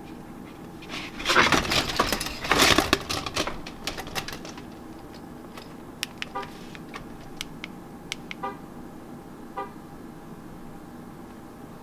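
Keys and key fob being handled close by, a loud burst of clicking and jingling in the first few seconds. Then a 2015 Dodge Charger's horn gives three short chirps, a few seconds apart, in answer to the key fob's remote signal.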